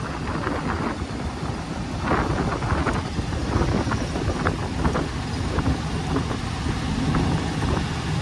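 Wind rushing and buffeting over the microphone in an open 1932 Ford roadster on the move, with the car's flathead V8 running low underneath.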